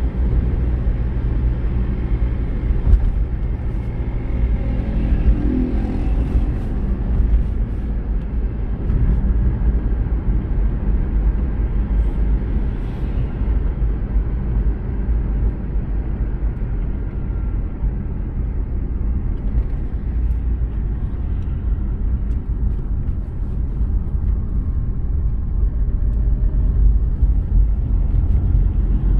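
Car driving steadily on a paved road, heard from inside the cabin: a low, even rumble of engine and tyre noise.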